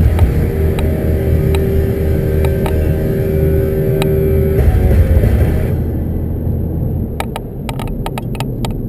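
Car driving on a road, heard from inside the cabin: a low rumble of engine and tyres, with a steady tone through the first half and a run of clicks near the end.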